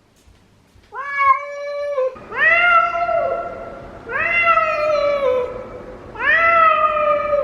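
Domestic cat meowing over and over: four long, drawn-out meows, one after another.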